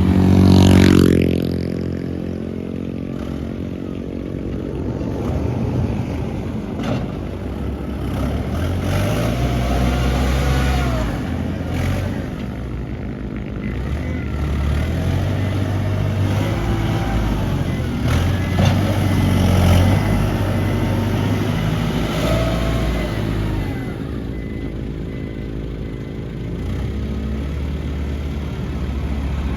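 Diesel engine of heavy earthmoving machinery working under changing load. It revs up sharply about a second in, then its pitch rises and falls, with a few short whines over the engine.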